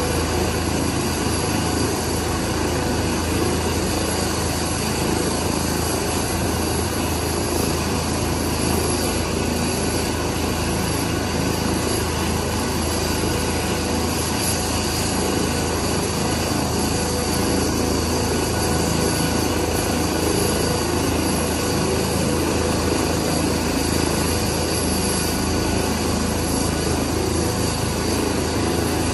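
Airbus Helicopters EC135 twin-turbine police helicopter running steadily on the ground ahead of take-off: a constant turbine whine over rotor and engine noise.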